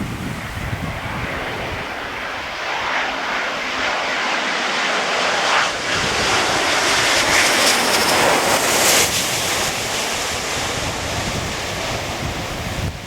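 Jet airliner passing close on its landing approach, its engine noise swelling to a peak about two-thirds through and then easing, over heavy wind buffeting the microphone.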